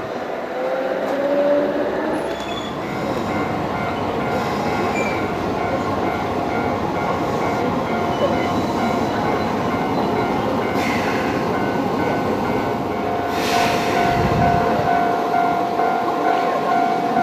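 Keisei electric train passing close by: steady wheel-on-rail rumble, with a rising motor whine near the start and a steady high squeal from about three-quarters of the way in.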